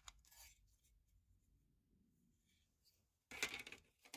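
Hands handling the speaker's plastic baffle and grille: faint scratching, then a louder scratchy rubbing for under a second about three and a half seconds in.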